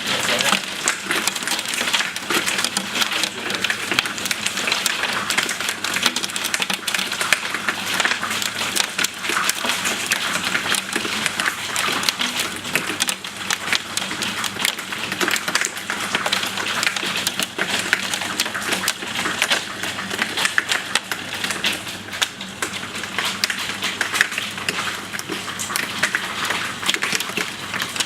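Hail pelting down hard, a dense, continuous clatter of countless small sharp impacts over a hiss of falling ice and rain.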